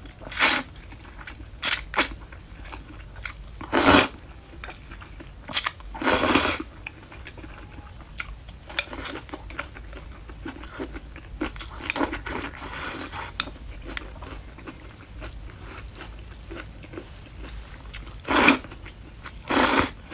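A person eating noodles with crisp diced bamboo shoots: crunchy chewing, broken by several short, loud mouth sounds, two of them near the end.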